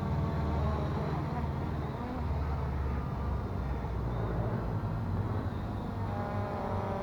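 Strong wind buffeting the microphone: a gusty low rumble that rises and falls. A faint steady buzz joins near the end.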